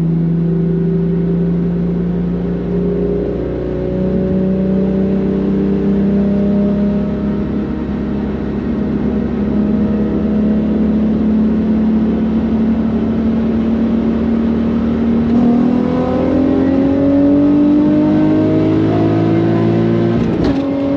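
Car engine and exhaust, running through stock catalytic converters and a 3-inch catback, pulling steadily under slow acceleration. The pitch climbs gradually, rises faster in the last few seconds, then drops suddenly near the end, as at a gear change.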